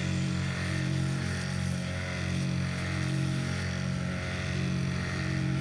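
A 6.7-litre Cummins inline-six turbo diesel in a Dodge Ram 2500 running steadily with an even low hum.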